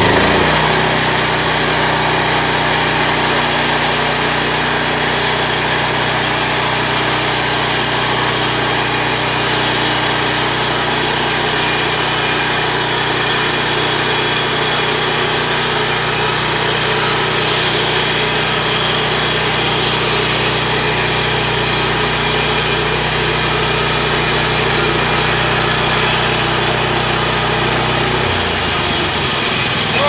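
Gas engine of a portable bandsaw sawmill running steadily, its note dropping a little near the end.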